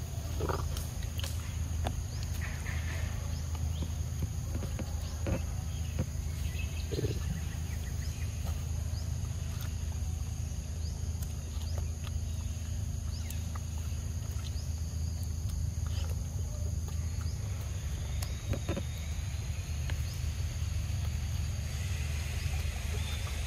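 Outdoor ambience in undergrowth: a steady low rumble, with scattered short clicks and small high chirps over a steady high hiss.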